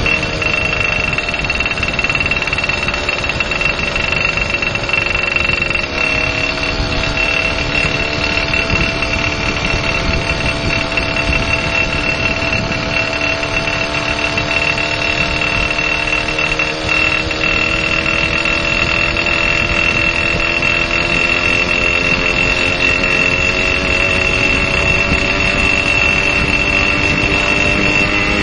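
Motorcycle engine running with a steady high-pitched whine over it: the strange noise the owner is showing. About six seconds in, the engine note drops, then slowly rises and falls.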